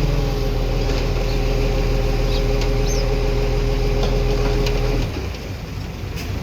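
Heavy diesel engine of earthmoving machinery running steadily, its low rumble dropping away abruptly about five seconds in.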